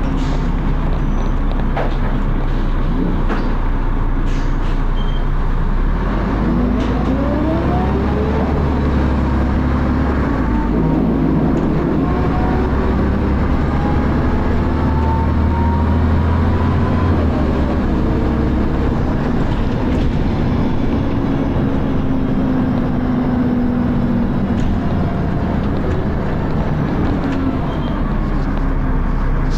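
Dennis Arrow double-decker bus engine and ZF automatic gearbox running under load. Rising whines come about seven seconds in and again from about eleven seconds as it accelerates through the gears, then it runs more steadily.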